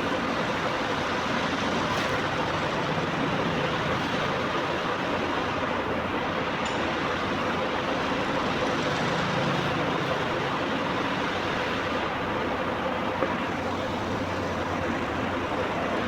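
Milling machine running steadily while cutting a gear, an even mechanical noise with a faint constant hum.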